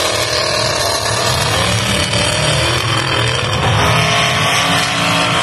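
Engines of several demolition derby cars running and revving at once, a loud, steady mix of engine noise with no single crash standing out.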